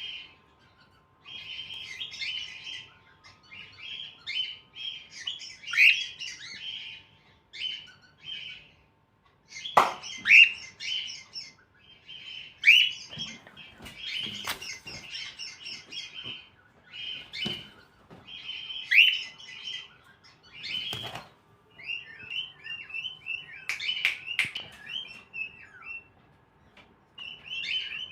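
Cockatiel chirping and chattering in quick runs of short calls, with several louder calls that sweep down in pitch. A few soft knocks are mixed in.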